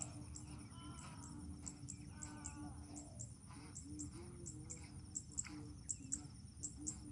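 Faint outdoor ambience: a high insect chirp repeating about two to three times a second, with a few short bird calls in the first half.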